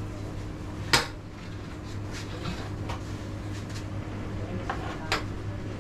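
Carrom game: one sharp click about a second in as the striker hits the carrom men, followed by a few lighter clicks of pieces knocking on the wooden board, over a steady low hum.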